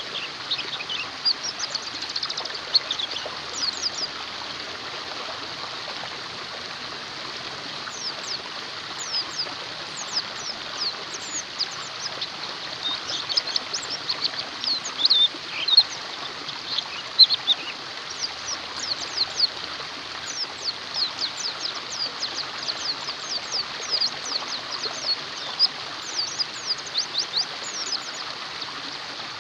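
Oriental white-eyes (pleci) twittering in rapid clusters of high, quick, downward-sweeping chirps over the steady rush of running stream water.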